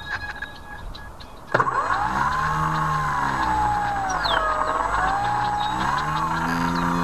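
Electric motor and propeller of an E-flite Apprentice RC floatplane, cutting in abruptly about a second and a half in and running with a whine that slowly dips and rises in pitch as the throttle changes.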